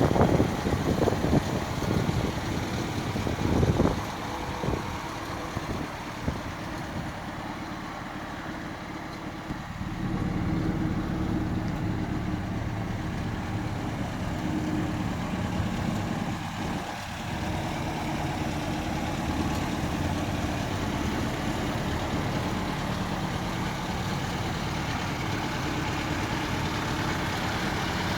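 Triumph 1800 Roadster's four-cylinder engine running at idle, with a few louder surges in the first few seconds. It runs a little louder from about ten seconds in.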